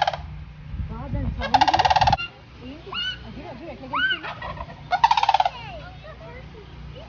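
Wild turkey gobbling: short, fast rattling gobbles a few seconds apart, with fainter gliding bird chirps between them.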